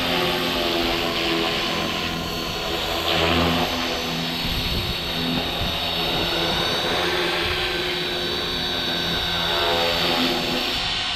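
Electric Walkera V450D03 RC helicopter in flight: the whine of its brushless motor and main rotor runs steadily, with the pitch shifting now and then as the throttle and blade pitch change.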